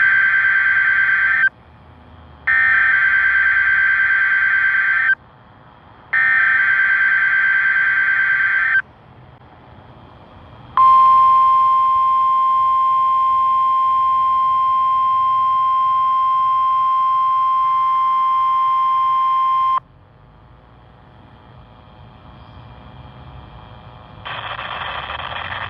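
NOAA Weather Radio required weekly test through a weather radio receiver. Three buzzy bursts of SAME digital header data, each about two and a half seconds, are followed by the steady 1050 Hz warning alarm tone, held for about nine seconds before it cuts off sharply. An announcer's voice begins near the end.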